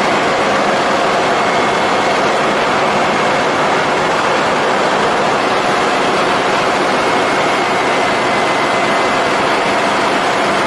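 Steady, loud machinery din of a crude oil tanker's engine room around its large marine diesel main engine. It is an unbroken wash of noise with a few faint steady hums running through it.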